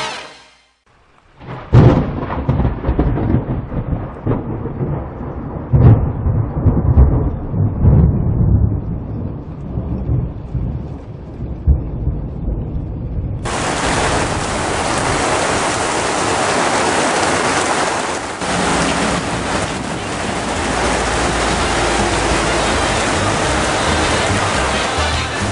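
Thunderstorm: a sharp thunderclap about two seconds in, followed by rolling rumbles of thunder that fade over the next ten seconds. About halfway through, heavy rain starts suddenly and keeps up a steady, dense hiss on the wet street.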